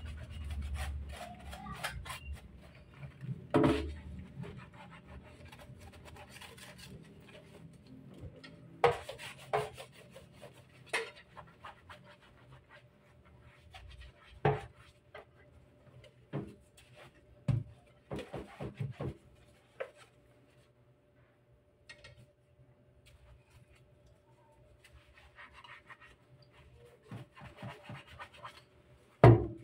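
Sponge scrubbing a soapy plastic water-purifier filter housing: continual rubbing and scraping, broken by a few sharp knocks and clatters of the plastic as it is handled.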